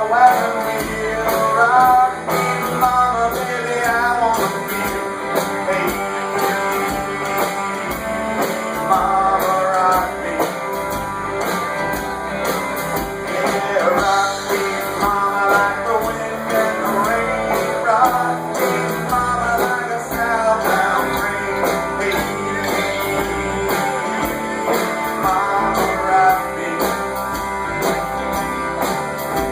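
Live band music with guitar to the fore, a melody line wavering in pitch over a steady accompaniment.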